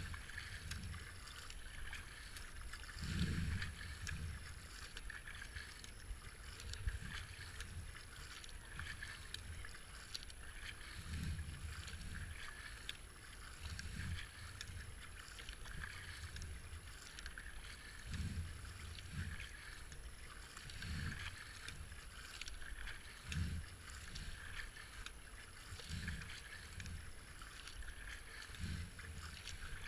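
Racing kayak being paddled downriver: a steady wash of water along the hull and paddle blades, with a low thump every two to three seconds.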